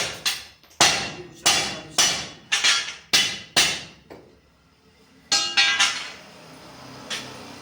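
Hammer striking steel: about eight sharp, ringing metal blows at a steady pace for four seconds, then a quick cluster of three ringing strikes and one lighter tap.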